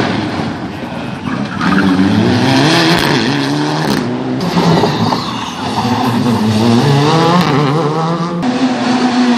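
Rally cars' engines revving hard through the gears as they pass, the pitch climbing and dropping again and again.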